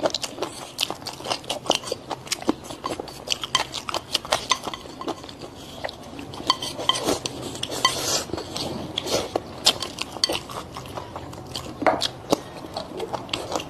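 Eating at a table: utensils clinking and scraping against dishes in rapid, irregular clicks, with chewing.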